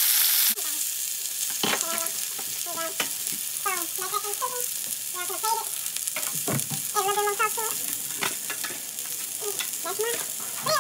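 A folded birria taco frying in olive oil in a skillet, a steady sizzle. Short pitched sounds come and go over it.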